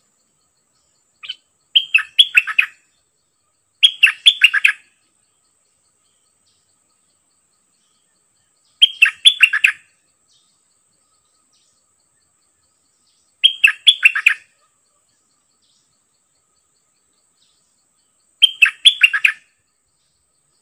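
Bulbul calling: five short phrases of quick chattering notes, each under a second, a few seconds apart.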